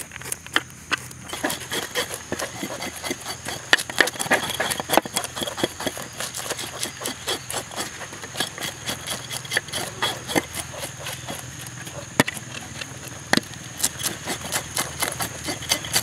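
Knives scraping scales off small fish on wooden boards: a dense run of quick, irregular scraping clicks from several knives at once.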